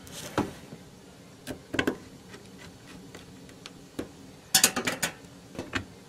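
Plastic clicks and knocks from a laptop's case being handled: a few separate clicks, then a quick burst of several clicks about four and a half seconds in.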